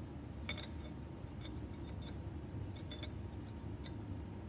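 Steel inner race and ball cage of a disassembled CV joint clinking against each other as they are rotated to line up and come apart. Several light metallic clicks with a brief high ring.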